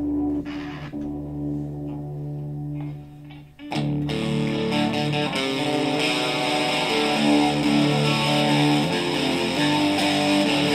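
Gibson Les Paul electric guitar played through a Digitech RP55 effects processor. A held chord rings and slowly fades, then after a brief dip about three and a half seconds in, louder chords are strummed.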